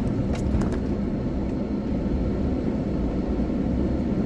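Steady low rumble of a vehicle running, with a few faint clicks in the first second.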